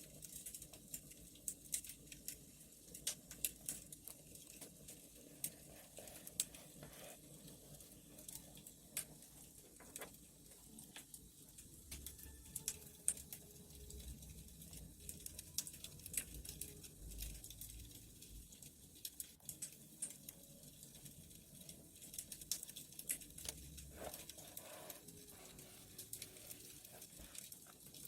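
Wood fire crackling, with irregular sharp pops and snaps over a faint hiss, and a few soft low thuds partway through.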